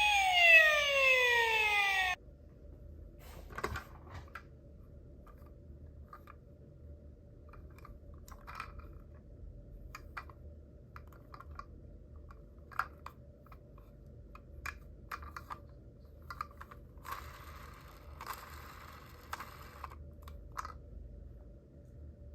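Toy minicar's electronic siren sweeping downward in pitch and cutting off abruptly about two seconds in. After it come only faint scattered clicks and taps.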